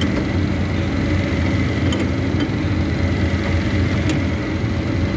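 Eccentric-style RMS roller mill running with a steady low machine hum, with a few faint clicks over it.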